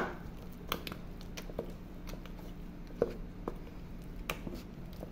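Soft, sticky bread dough being beaten and folded in a stainless steel bowl: irregular squelches and light knocks, the sharpest right at the start.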